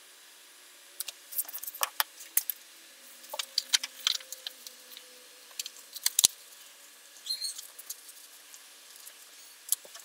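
A paper pattern being cut with a hobby knife and handled on a cutting mat: scratchy rustling and crinkling of paper with scattered sharp clicks and taps, starting about a second in.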